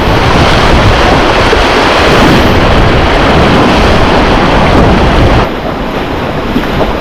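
Rushing white-water river with wind noise on the microphone: a loud, steady rush that drops somewhat about five and a half seconds in.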